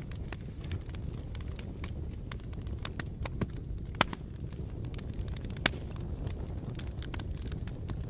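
Wood fire burning, a steady low rumble of flames under a constant scatter of sharp crackles and pops, with two louder pops about four and five and a half seconds in.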